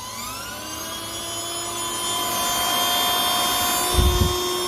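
Cordless rechargeable handheld car vacuum switched on: its motor whine rises over the first couple of seconds as it spins up, then runs steadily on its lower (level 1) setting with a rush of air. A brief low rumble comes about four seconds in.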